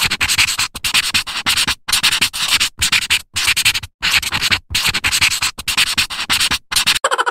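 A scratchy pen-on-paper writing sound effect: quick short scribbling strokes, several a second, with brief pauses between groups. Just before the end it changes to a faster, buzzier sound.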